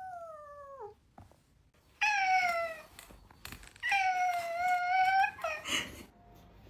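A cat meowing three times. The first call falls in pitch and ends about a second in, a shorter falling meow comes at about two seconds, and a longer, louder, steady meow follows at about four seconds.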